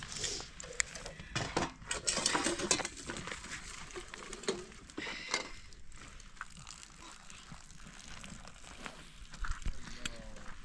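Metal teapot and kettle being handled: scattered clinks, knocks and scraping, busiest in the first few seconds.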